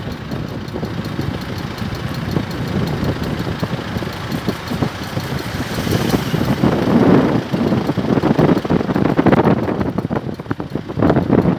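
Car running with irregular knocking and clicking, a 'pok paek' noise coming from the front right wheel; the owner has not found its cause.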